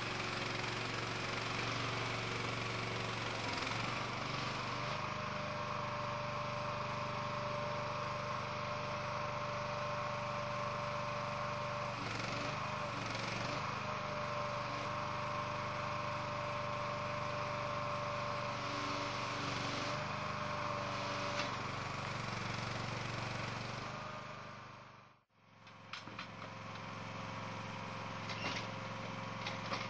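Engine-driven machinery running steadily: a low drone with a constant whine over it. It fades out sharply about 25 seconds in, then picks up again.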